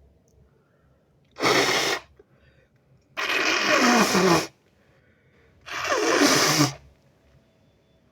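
Three harsh nose blows: a short one, then two longer ones of over a second each.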